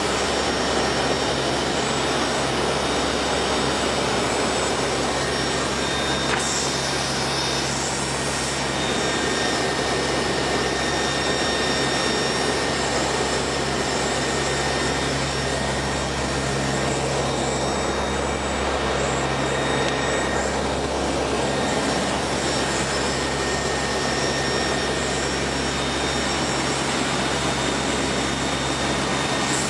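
Aircraft engines droning at a steady level: a constant low hum with a few steady tones over an even wash of rushing noise.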